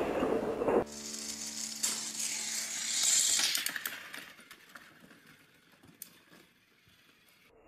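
Background music that cuts off about a second in, then the electric motor and gears of a battery-powered toy train whirring and rattling along plastic track, loudest about three seconds in and fading to a faint whir.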